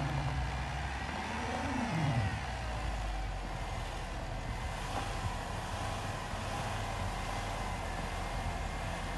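Vehicle engines under load during a tow out of deep snow. An engine's pitch wavers and then falls about two seconds in, and a steady low engine drone with an even rushing noise follows.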